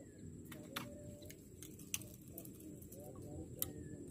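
Quiet outdoor ambience: faint bird calls over a steady high-pitched drone and low rumble, broken by three sharp clicks about a second apart.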